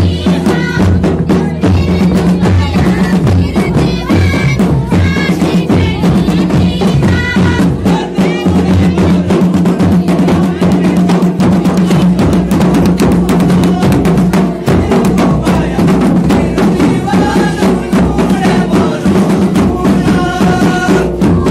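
Jaunsari folk dance music: fast, steady drumming, with voices singing over it at times.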